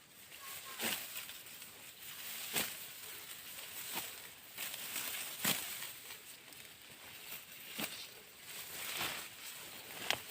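Rice stalks being cut by hand with a sickle: a short swish and rustle of straw every second or two.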